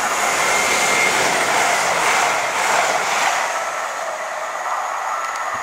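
CrossCountry Voyager diesel multiple unit running through at speed: a steady rush of wheel and engine noise, loudest in the first three seconds and easing a little after.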